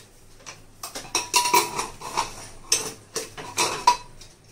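Metal clanks and scrapes of an aluminium pressure cooker's lid being unlocked, worked free and lifted off the pot, with a couple of short ringing clinks; the pressure inside has fully dropped, so no steam hisses out.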